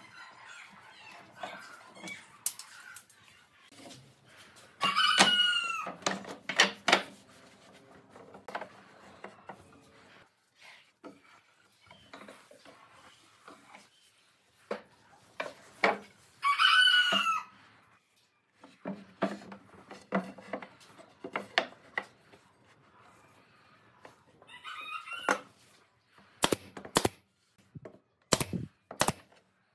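A rooster crows three times, each call about a second long with a bending pitch, the last one fainter. Scattered knocks of wood being handled run between the calls, and near the end a pneumatic nail gun fires several sharp shots.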